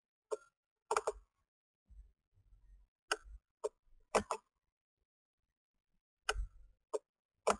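Computer mouse button clicking, about eight short sharp clicks at uneven intervals, with a few dull low thumps between them.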